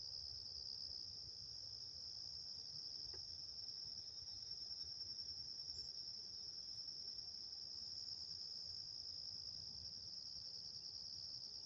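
Steady insect chorus, a continuous high-pitched trill that never breaks, with a faint low rumble underneath.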